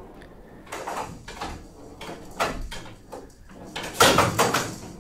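Showdown rally: the rattle ball is knocked by wooden bats and clacks against the wooden side walls of the table. There are a few sharp knocks, and the loudest comes about four seconds in.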